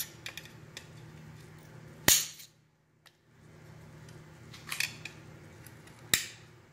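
Spring clips of a vintage VW Bosch distributor cap being pried off with a screwdriver: sharp metallic snaps about two seconds in, again near five seconds and near the end, with lighter clicks between.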